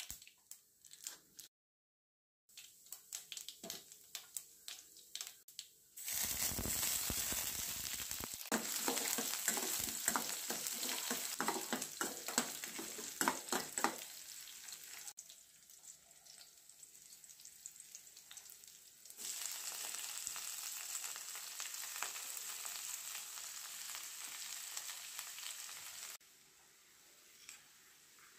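Tempering frying in hot oil in a stainless steel pan: scattered crackles and pops from mustard seeds and urad dal at first, then a louder sizzle with crackling from about six seconds in as sliced shallots and dried red chillies fry and are stirred with a steel spoon. The sizzle eases off and comes back in stretches.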